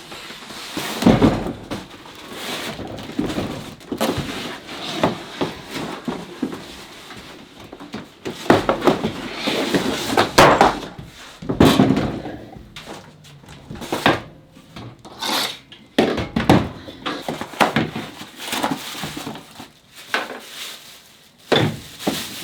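A wood lathe and its parts handled while being unpacked from the box: irregular knocks and thunks as pieces are lifted and set down, with rustling between them.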